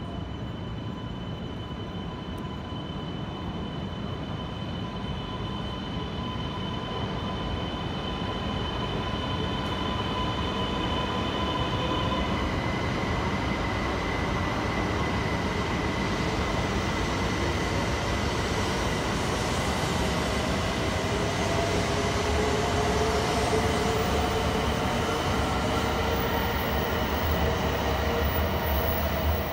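E2 series Shinkansen departing and accelerating away from the platform: its electric drive whines in tones that shift and climb in pitch as it picks up speed, over rolling and running noise that grows steadily louder as the cars pass.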